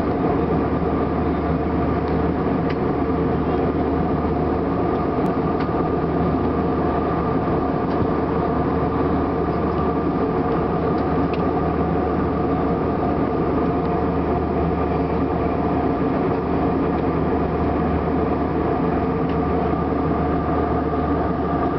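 Steady cabin noise of an airliner in flight: an even engine and airflow drone with several steady hums over it.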